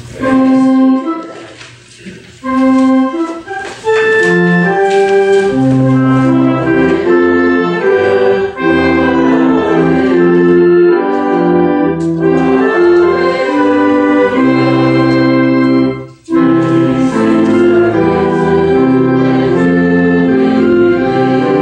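Church organ playing sustained chords in a hymn-like tune: a few short separate chords at first, then steady playing with a brief break about 16 seconds in.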